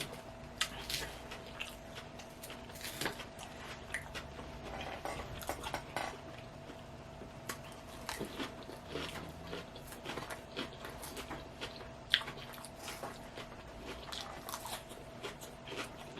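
Close-miked chewing and crunching of a southwest chicken salad, with irregular crisp crunches and mouth sounds, over a faint steady hum.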